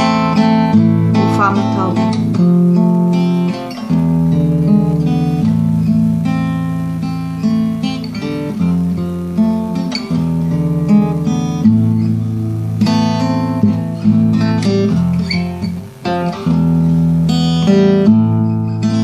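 Acoustic guitar strummed through a slow chord progression, the chords changing every second or two.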